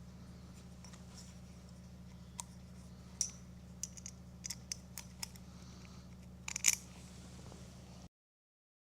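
Light, scattered clicks and taps of small metal hardware and hand tools being handled on a workbench, with a louder cluster of clicks near the end, over a steady low hum.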